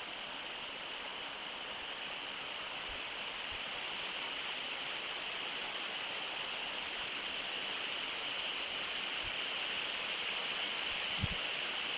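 Steady outdoor background hiss with a brighter high band, slowly growing a little louder, and a single soft low thump about a second before the end.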